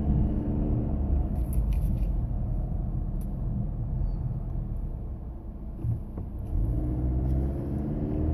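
2016 Nissan Rogue SL's 2.5-litre four-cylinder engine running with a low rumble; its pitch falls over the first second and rises again near the end. This is the engine the owner recorded for a grinding noise, which was later replaced as defective.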